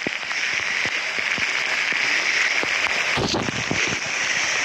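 Heavy thunderstorm rain pelting a wet road surface: a steady hiss of splashing drops with scattered crackles, and a brief louder rush about three seconds in.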